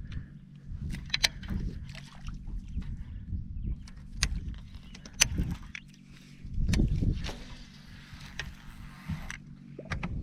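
Small fishing boat on the water: a steady low hum with scattered sharp clicks and knocks, and a louder low rumble about seven seconds in.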